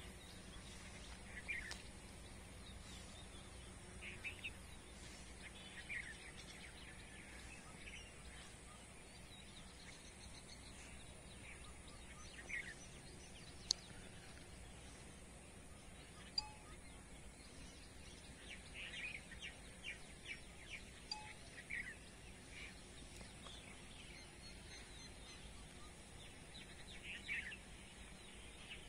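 Faint open-air background hiss with birds calling in short chirps every couple of seconds, bunching into quick runs of chirps later on. Two sharp ticks stand out in the middle.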